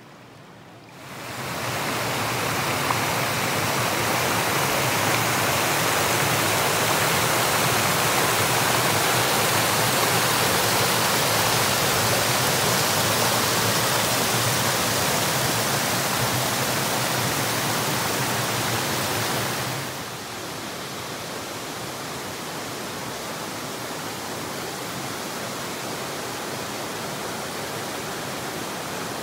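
Stream water rushing over rocks, a steady loud rush that swells in about a second in. About twenty seconds in it falls suddenly to a quieter steady rush of water spilling over a small weir into a pool.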